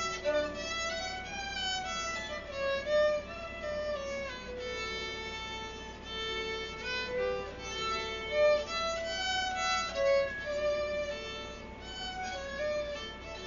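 Solo violin, bowed, playing a slow single-line melody note by note, most notes held about half a second to a second, with a few louder accented notes.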